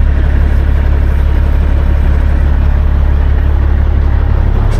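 Peterbilt 389 semi truck's diesel engine idling with a steady deep rumble; near the end the low rumble shifts and turns uneven.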